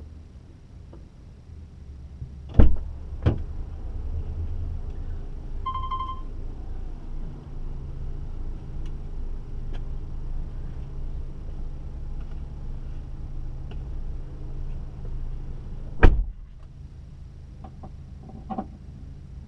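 Two thumps of car doors shutting, then a car's engine running with a steady low rumble and a short electronic chime. A loud door slam comes near the end, and the rumble falls away after it.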